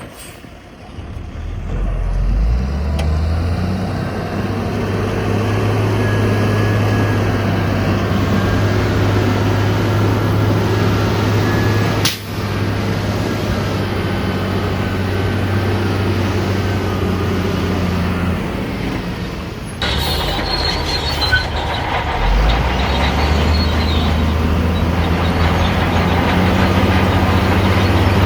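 Heavy diesel engine of earthmoving machinery running hard. Its pitch climbs in steps near the start and again about three-quarters through. The sound breaks off abruptly twice.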